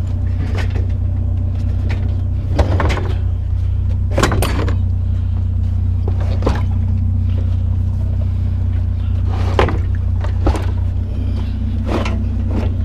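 A vehicle engine idling steadily under a run of separate knocks and clunks, about half a dozen, as scrap pieces are shifted and wedged into a truck bed.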